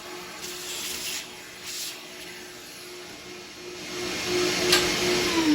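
Scroll saw running with a steady motor hum while its blade cuts through thick wood, with hissing cutting noise that grows louder after about four seconds. Just before the end the saw is switched off and the hum starts to fall in pitch as the motor winds down.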